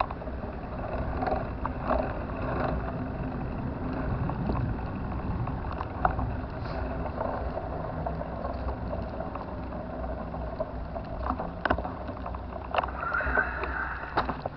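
Steady low rumble of riding a bicycle: wind on the microphone and tyres on the road, with scattered small clicks and knocks.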